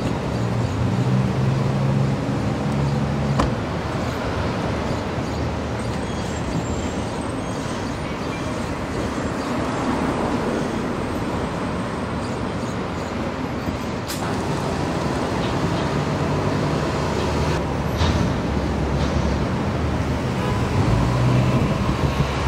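City street traffic: vehicle engines running and cars passing in a steady hum. A single sharp knock about three seconds in, like a car door being shut.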